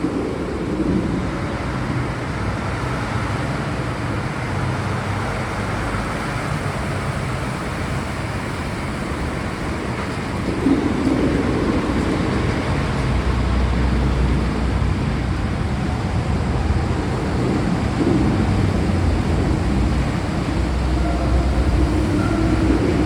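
Steady rain with a low rolling rumble of thunder, the rumble growing louder about ten seconds in.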